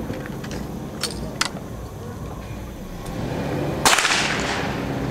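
A single loud gunshot a little under four seconds in, its report echoing and dying away over about a second. Two faint sharp clicks come earlier.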